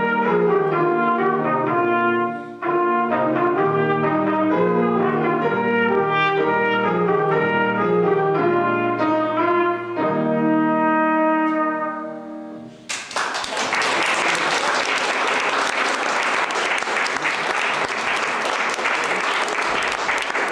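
Solo trumpet playing a line of short notes, closing on a long held note about twelve seconds in; audience applause follows for the rest.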